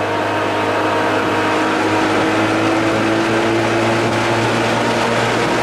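Outboard motor running steadily at speed, driving an aluminum jon boat across choppy water, with rushing wind and water. The engine's pitch creeps up slightly a couple of seconds in.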